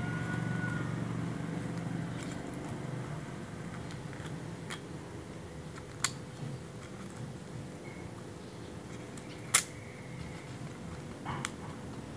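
A few sharp clicks over a low steady hum, the loudest about three-quarters of the way through.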